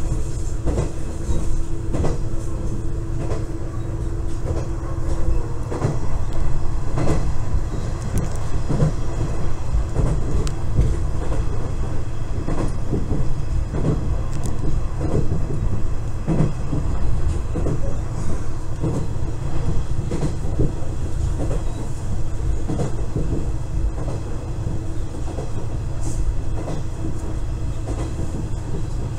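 Two-car KiHa 110 series diesel railcar running along the line, heard from inside its rear cab: a steady low rumble with wheel clicks over the rail joints. A steady hum sounds for the first five seconds or so, then stops.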